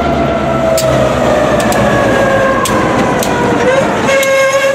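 Freight train of tank cars rolling slowly past over the rails: a steady high-pitched wheel squeal that sags slowly in pitch, with scattered metallic clanks. The squeal shifts about four seconds in, as the switcher locomotive comes up.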